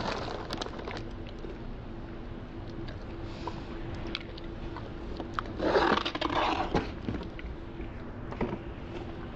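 Handling noise on a tabletop: a plastic bag of cereal crinkling as it is set down, then about halfway through a second of scraping and rustling as a plastic tub is slid across the table, and a light knock near the end.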